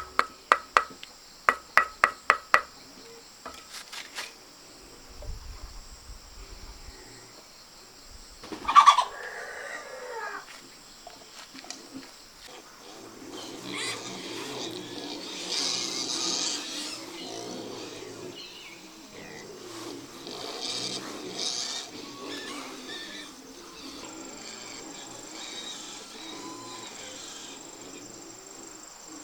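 Farm animal sounds over a steady high insect drone, with one loud call about nine seconds in. A quick run of sharp knocks comes in the first few seconds.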